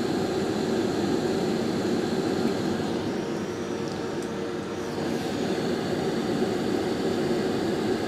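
Hot air rework station blowing steadily: a constant rushing noise with a faint steady tone.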